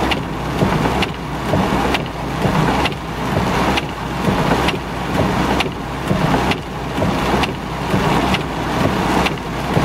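Heavy rain on a car with the windshield wipers running fast, heard from inside the cabin: a regular swish-and-click about once a second over a steady rush of rain and a low engine hum.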